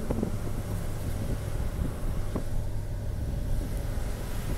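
A car driving down a narrow mountain road, its engine and tyre noise a steady low hum heard from inside the car.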